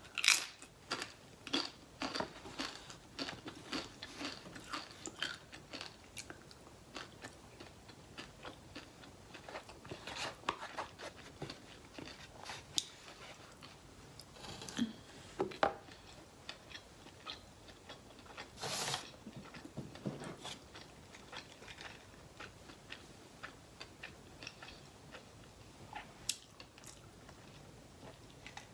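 Close-up eating sounds of a Chipotle burrito bowl being chewed: soft, irregular bites, crunches and small wet mouth clicks, with a couple of louder bites partway through.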